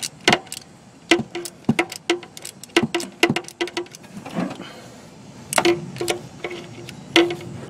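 Socket ratchet clicking in short, irregular runs as a new spark plug is tightened into the engine, some clicks followed by a brief metallic ring.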